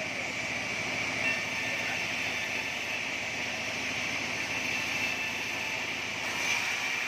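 Band sawmill running with a steady, even machine noise and a constant high-pitched tone over it.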